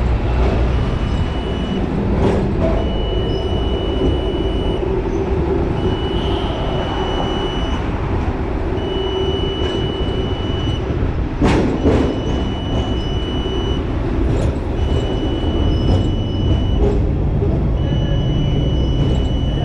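Hong Kong electric tram running along street track, heard from the driver's cab: a steady rumble of wheels and motor, with one loud clank about twelve seconds in. A high electronic beep sounds for about a second at a time, roughly every two seconds.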